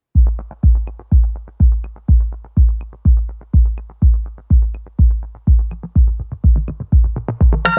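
Electronic background music: a steady kick drum about twice a second with light ticks between the beats, joined by synthesizer chords near the end.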